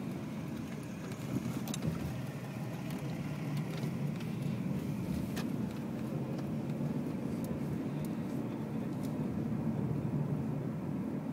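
Steady road noise and engine hum of a car driving, heard from inside the cabin, with a few light clicks.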